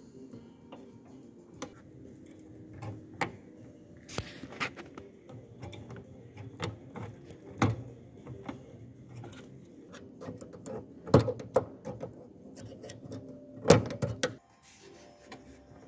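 Irregular plastic clicks and taps as a screwdriver and fingers work a fan-cooled LED headlight bulb and its wire retaining clip in the back of a Peugeot 308's plastic headlight housing. The sharpest knocks come about halfway through and near the end.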